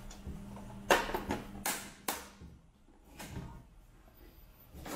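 Hinged tin box lid shut with a sharp metallic clack about a second in, followed by a couple of lighter knocks and rubbing as the tin is handled.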